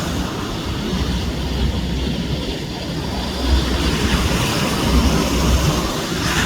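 Wind buffeting the microphone in gusts, a heavy low rumble that swells and fades every second or so, over a steady rush of surf.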